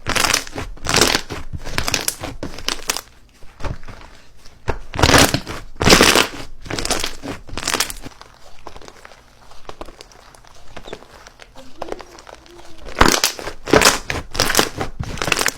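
Slime being squeezed and pressed by hand, making irregular crackling, crinkling bursts, quieter for a few seconds in the middle before picking up again near the end.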